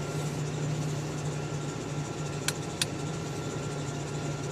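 Pickup truck engine idling steadily, with two sharp clicks close together about two and a half seconds in.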